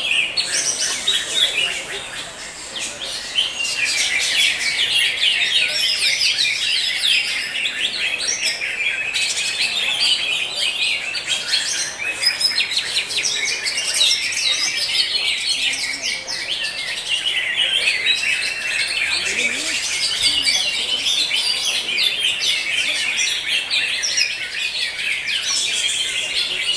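Greater green leafbird (cucak hijau) singing a fast, continuous run of varied chirps and trills, with a brief lull about two seconds in.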